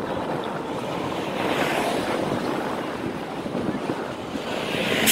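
Wind buffeting the microphone of a camera riding on a moving bicycle, over street traffic. The rushing noise swells about two seconds in and surges loudest just at the end.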